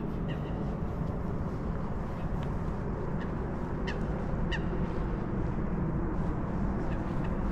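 Short bird calls now and then over a steady low outdoor city rumble; the clearest two come about four seconds in, half a second apart.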